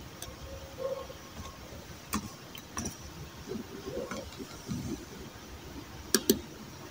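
Computer keyboard keys clicking as a word is typed: a few scattered key presses, then two sharp clicks close together near the end.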